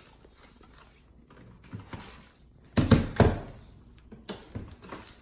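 Hard plastic parts of a Shark Rocket stick vacuum knocking and clicking as they are handled and fitted together, with two loud thunks close together about three seconds in.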